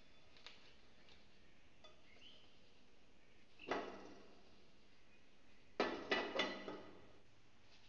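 Frying pan knocking against the stove as it is tilted to spread the oil: one clank nearly four seconds in, then three quick clanks close together about six seconds in, each with a short ring.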